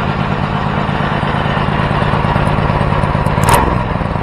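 Homemade 424cc inline twin engine, built from two Predator 212 single-cylinder engines, running steadily, with one short sharp burst of sound about three and a half seconds in.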